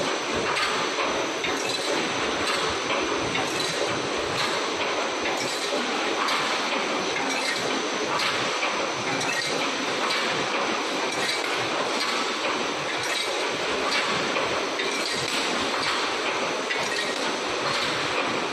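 Wire mesh welding machine for 3D EPS wall panels running, a steady dense metallic clatter with faint regular clicks.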